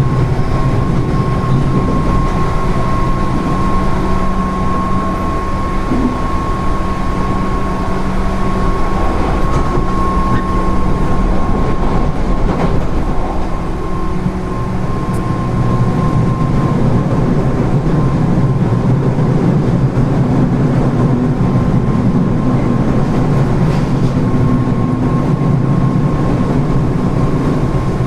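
Running sound of a JR 205 series (0 subseries) electric train with field-added excitation control: a steady rumble of wheels on rail and traction motors, with a thin steady whine over it.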